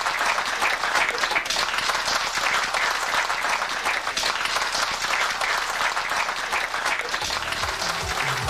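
Audience clapping hands in applause, steady and sustained. Music fades in near the end.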